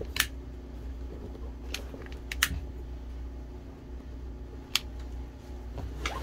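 A handheld lighter clicking about five times, sharp single clicks spaced a second or more apart, as it is flicked to singe frayed thread ends off sewn patches. A steady low hum runs underneath.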